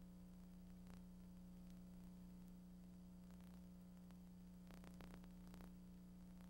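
Near silence: a steady low hum, with a few faint clicks about a second in and again around five seconds in.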